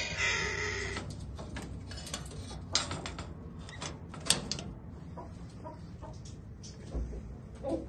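Caged birds calling: a loud call fades out in the first second, then a few short sharp calls come about three and four seconds in, with a low thump near the end.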